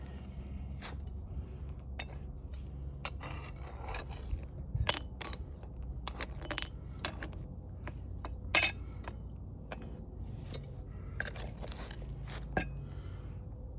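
Hard metal pieces clinking and scraping against one another, a sharp strike every second or two, loudest about five and eight and a half seconds in, over a steady low hum.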